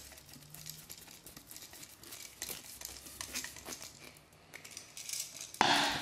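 Faint clicks and small metallic rattles of a Robertson screwdriver turning down the unused terminal screw on a duplex electrical receptacle, with a louder rustle near the end as the receptacle is handled.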